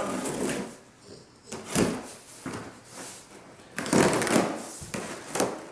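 Cardboard shipping box being slit and pulled open: four bursts of scraping and tearing cardboard, the longest about four seconds in.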